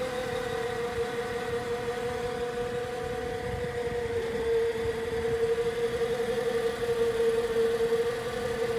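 An engine running steadily at idle, giving a constant mid-pitched hum.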